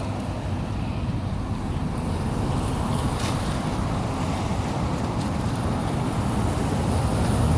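Excavator engine running steadily with a low rumble during demolition work, with a brief knock about three seconds in.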